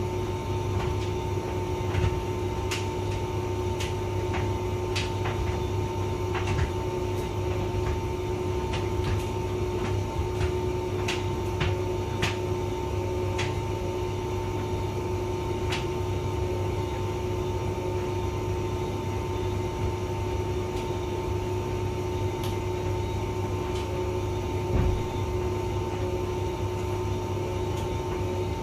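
Hotpoint vented tumble dryer running: a steady motor hum with a constant whine, and scattered light clicks and taps that come more often in the first half and thin out later.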